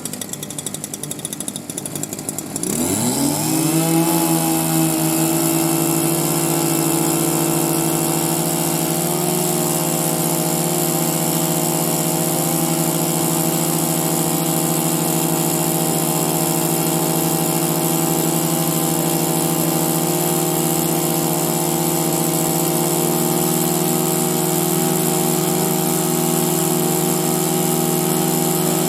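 Small gasoline engine of a Vessel GT3500GE portable impact wrench: it clatters for about two and a half seconds, then revs up quickly and runs at a steady high speed.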